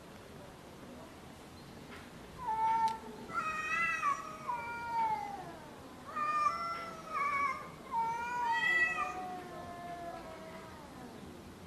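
Cats caterwauling at each other in a standoff: long, wavering yowls that slide down in pitch, in several bouts. This is the threat call of two cats squaring up to fight.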